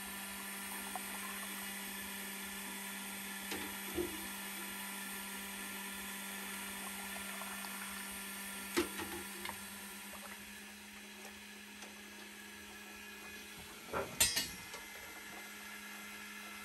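Milk pouring from a metal ladle through a mesh strainer into the bowl of an electric cream separator, over the steady hum of the separator's motor. There are light metal clinks from the ladle and strainer, the pouring trails off partway through, and a louder clatter of metal comes near the end.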